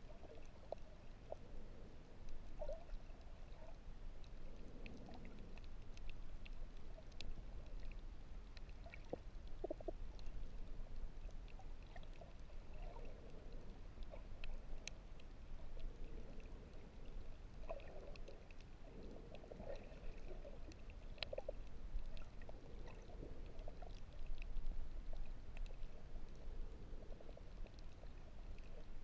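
Water sloshing and gurgling close to the microphone, over a steady low rumble, with scattered faint clicks.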